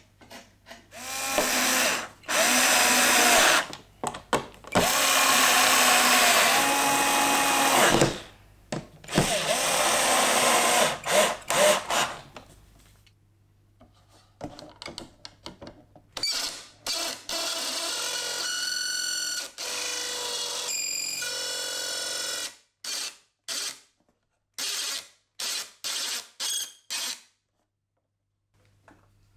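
Electric power tool motor running in several long runs, its pitch sliding up and down, then a steadier run and a string of short bursts near the end.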